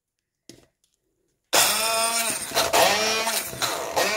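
Electric stick blender switching on suddenly about a second and a half in. It runs with its motor pitch repeatedly dipping and recovering as the blades chop ginger, garlic and chilies in a plastic beaker.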